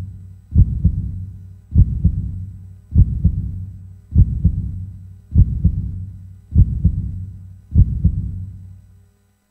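Heartbeat sound effect: low double thumps about every 1.2 seconds, seven in all, dying away shortly before the end.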